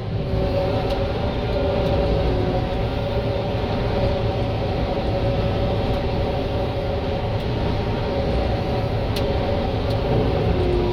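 John Deere 9500 combine running while harvesting, heard from the cab: a steady engine and machinery rumble with a steady whine from the threshing cylinder working under the load of the crop.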